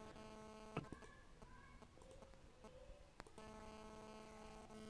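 Near silence: a faint steady electrical hum that drops out for a couple of seconds in the middle. Two faint computer-mouse clicks come about a second in and just after three seconds.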